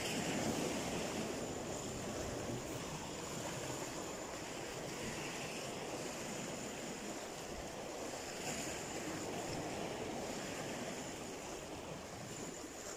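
Sea waves and surf, a steady rush of water with some wind.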